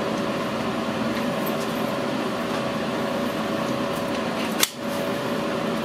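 Steady hum of a fume extractor fan, with one sharp click about four and a half seconds in.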